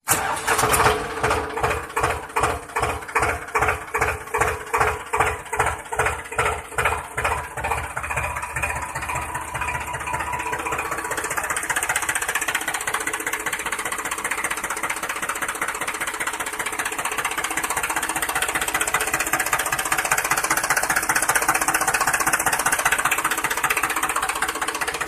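Homemade miniature model tractor's small motor running as the tractor drives: a slow chugging knock about twice a second for the first several seconds, then a steady, even running sound.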